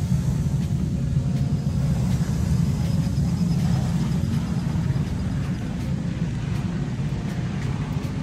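Steady low machine rumble, with a faint high whine held above it.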